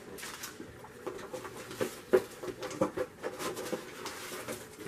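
Items being rummaged through and handled in a cardboard box: rustling of paper and packaging with scattered light knocks, the sharpest about two seconds in.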